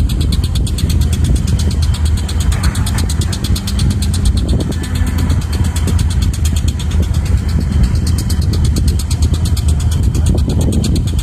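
Heavy diesel engine of a Caterpillar 320 excavator running steadily with a fast, even clatter as the machine digs.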